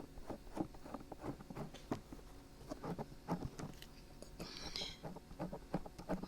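Dried glue being peeled off a binaural microphone's ears: small irregular crackles and ticks, with a brief soft hiss about four and a half seconds in.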